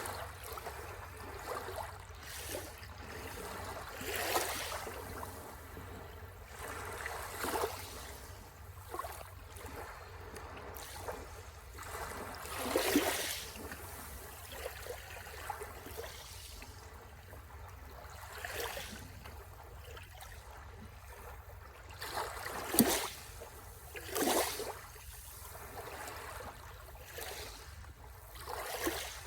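Sea waves washing and splashing on the shore, in irregular surges every few seconds, with a steady low rumble underneath.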